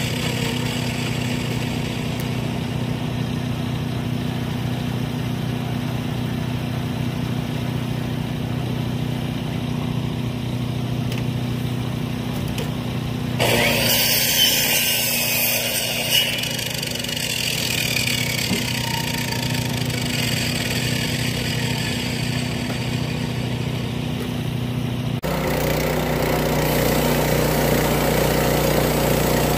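Gas engine of a Timbery M100 portable bandsaw mill idling steadily, with two short knocks about 14 and 16 seconds in. About 25 seconds in the engine sound changes abruptly to a louder, deeper hum.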